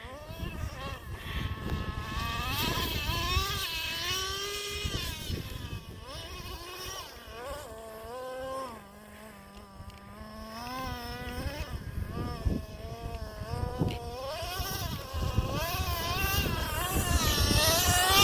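Traxxas Slayer Pro RC truck's small nitro engine revving up and down as the truck is driven, its pitch rising and falling over and over. About halfway through it settles briefly to a steadier, lower note, then revs again, with a few short knocks.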